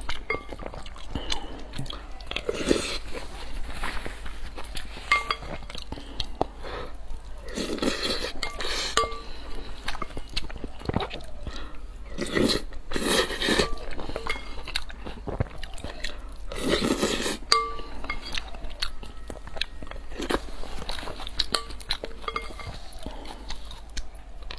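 A person eating close to the microphone: chewing, broken by several louder, crunchy bites a few seconds apart.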